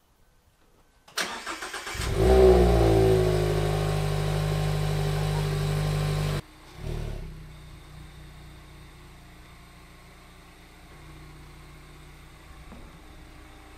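Cold start of a Mazda MX-5 ND's four-cylinder engine through an Ulter Sport aftermarket exhaust: the starter cranks briefly, the engine catches with a flare of revs about two seconds in and settles into a loud, steady high idle. Past the halfway point the sound drops suddenly to the same engine idling much more quietly.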